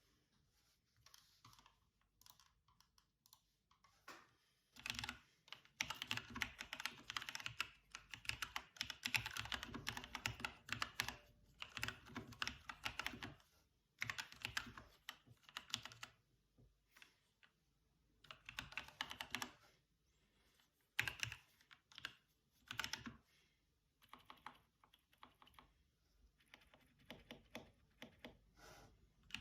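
Typing on a custom Machenike K500 mechanical keyboard with lubed Huano Brown tactile switches and PBT keycaps, modded with sound insulation and a tape mod. Fast runs of keystrokes come in bursts of a few seconds with short pauses between, after a few scattered single key presses at the start.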